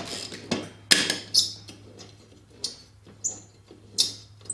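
About eight irregular metal clinks and clicks as the steel blades and wrench are handled under a Honda HRX217 mower's deck during a blade change.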